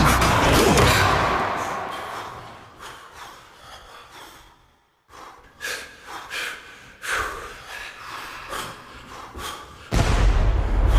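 Commercial soundtrack of sound effects: a loud burst of noise that fades away over about four seconds, a brief silence, then short breaths, gasps and thuds, with loud music coming in near the end.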